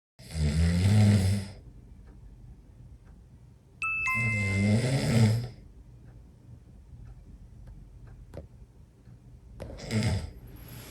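A person snoring loudly: two long snores about four seconds apart and a shorter one near the end. A short two-note falling chime, like a ding-dong, sounds just as the second snore begins.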